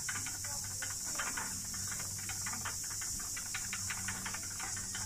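Wooden spinning wheel turning while chunky textured wool is spun, giving light irregular clicks, over a steady high-pitched chorus of cicadas and a low hum.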